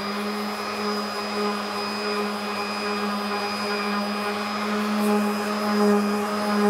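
Electric random orbital sander running steadily against a pallet-wood tabletop, sanding down wood filler. The motor holds one even pitch, with the rasp of the pad on the wood.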